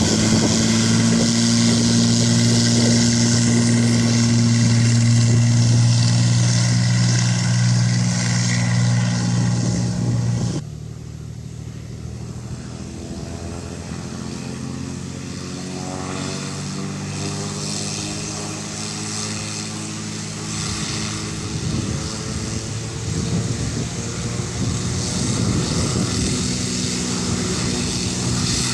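Cessna 206 single-engine piston propeller plane under takeoff power: a loud, steady drone that drops off abruptly about ten seconds in. After that a quieter engine drone follows, its pitch sliding lower, and it grows louder again near the end.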